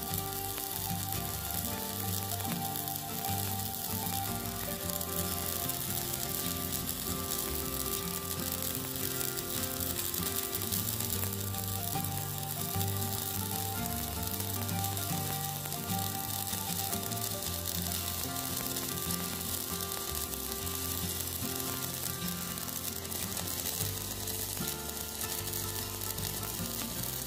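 Stick-welding arc from a Poney MMA 200E mini inverter welder burning a 3.2 mm electrode on thick steel: a steady crackling sizzle without breaks. The current is set about right for the rod, to the welder's own judgment, and the bead comes out even.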